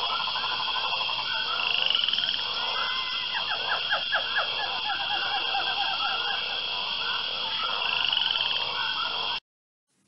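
Rainforest chorus of calling frogs: steady high trilling with many quick chirps, and a run of fast falling calls in the middle. It cuts off abruptly near the end.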